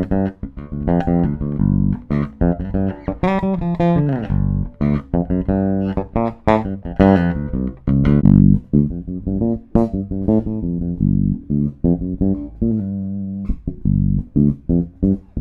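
Yamaha BB414X electric bass played fingerstyle: a continuous line of plucked notes with a few slides.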